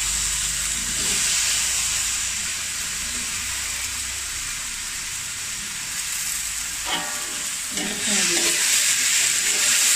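Diced potatoes sizzling as they fry in hot coconut oil in a metal wok, a steady hiss that eases a little midway and swells again near the end. A metal spatula scrapes and stirs them a few times near the end.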